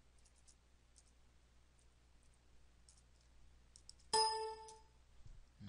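Faint computer keyboard keystrokes as code is typed, then about four seconds in a short electronic chime, a bright ringing tone that fades out within a second.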